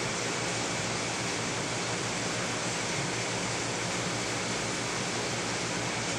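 Steady rushing noise of aquarium water circulation and pump, even and unchanging throughout.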